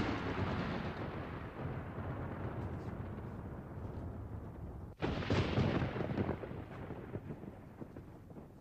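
Haunted-house film sound effect of loud rushing booms. One is already fading away, then a second starts suddenly about five seconds in and dies down over the next few seconds.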